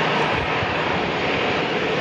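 Jet engines of a twin-engine widebody airliner rolling along the runway, a steady, even rushing noise.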